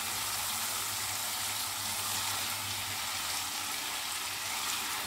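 Steady sizzle of tomato-onion masala frying in a steel pan as boiled red kidney beans and their cooking water are ladled in.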